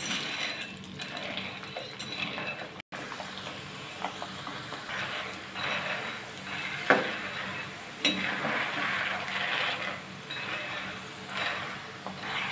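Metal ladle stirring large sago pearls roasting in hot ghee in a kadhai: repeated scraping strokes, with a few sharp clinks of the ladle against the pan.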